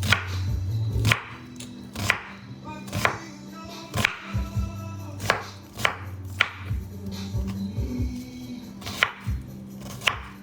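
Knife chopping an onion on a cutting board, sharp knocks at roughly one cut a second.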